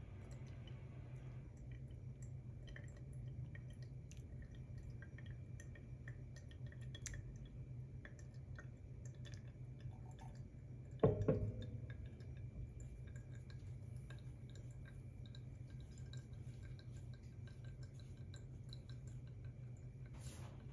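Hot water pouring from a gooseneck kettle into a paper-filtered pour-over dripper stops about a second in, leaving coffee dripping through the filter with faint scattered ticks from the draining bed. About halfway through comes a single knock with a brief ring, and a low steady hum runs underneath.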